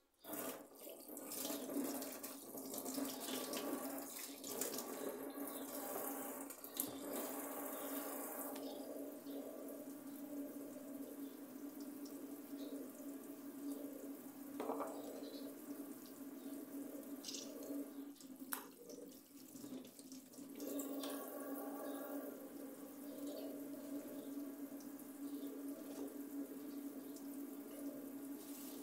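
Kitchen tap turned on suddenly and running water into a sink, the splashing changing in strength as the stream is used, over a steady low hum.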